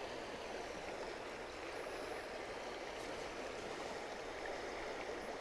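Steady rush of a shallow river flowing over stones.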